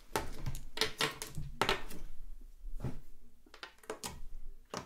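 Long acrylic claw nails tapping on a small plastic slime tub and poking into clear glitter slime: sharp separate clicks, roughly one a second.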